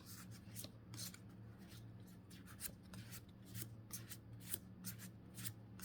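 Pokémon trading cards from a freshly opened booster pack being slid one behind another by hand, a soft flick for each card, several a second, over a faint steady low hum.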